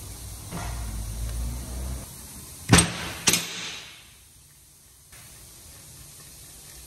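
Two sharp metal clanks about half a second apart, from a steel wrench being handled on the workbench while the valve clearances on a twin-cam cylinder head are checked, after a low rumble in the first two seconds.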